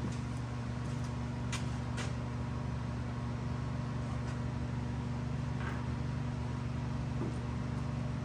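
A steady machine hum, with a few faint clicks about one and a half and two seconds in.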